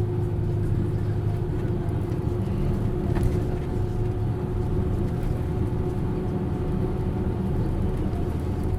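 Hino U-HT2MLAA bus's diesel engine running steadily under way, heard on board, with a steady high tone held above the engine drone. The bus runs with what the uploader calls a strong abnormal noise.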